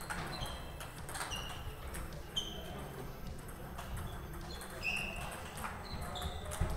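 Table tennis ball rally: irregular hard clicks of the ball off rubber-faced paddles and table tops, with short high pings, including play from neighbouring tables.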